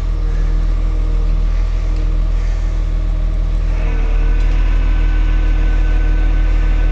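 Engine running steadily at constant speed, a continuous hum with several steady tones. About four seconds in it grows slightly louder and a higher steady whine joins it.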